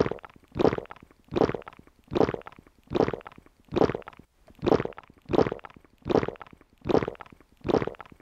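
Big gulping swallows, one about every 0.8 seconds, eleven in a row: someone chugging a drink down in one go.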